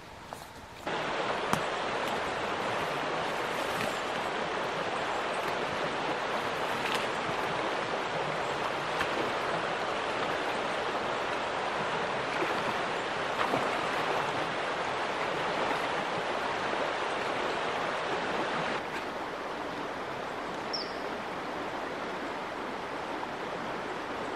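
Steady rushing of a flowing stream, becoming a little quieter about three-quarters of the way through.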